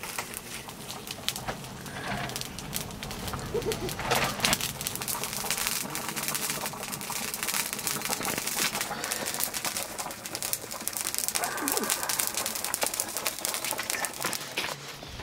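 Meat curry boiling hard in an iron wok over an open wood fire: continuous bubbling and popping, with the fire crackling underneath.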